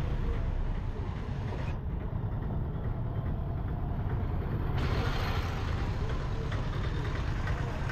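Street traffic with tuk-tuk and motorbike engines running close by over a steady low rumble. From about two seconds in, the upper part of the sound turns dull for about three seconds, then comes back.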